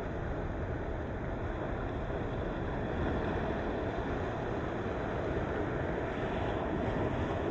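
Ocean waves breaking against the shore: a steady rush of surf that swells slightly in the second half.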